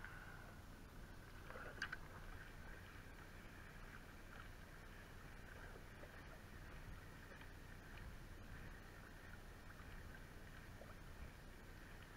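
Near silence: faint, steady water and wind noise around a sea kayak, with one light tick about two seconds in.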